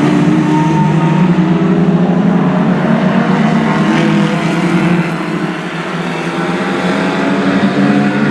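Several Lightning Rods race cars' engines running hard as the pack laps the oval, a few engine notes overlapping; the sound dips slightly about five seconds in.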